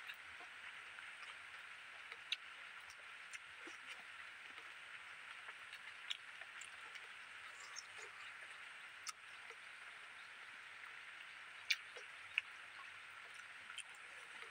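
Quiet eating sounds of a person eating fish curry and rice by hand: scattered small clicks and smacks of mouth and fingers, over a steady high hiss of outdoor background.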